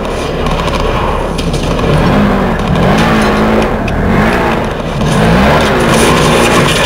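Dirt bike engine revving hard on a hill climb, its pitch rising and falling over and over as the throttle is worked.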